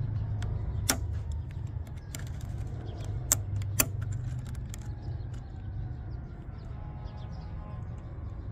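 Pliers squeezing a spring hose clamp back onto the small coolant return hose at the expansion tank: a few sharp clicks, two of them close together about halfway through, over a low steady hum.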